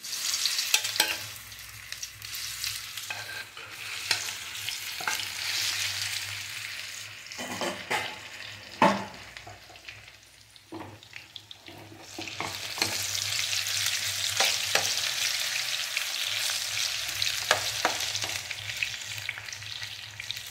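Marinated soya chunks sizzling as they shallow-fry in hot oil in a frying pan, with a steel spoon knocking against the pan as pieces are dropped in and turned. The sizzle dips in the middle and swells again from about halfway.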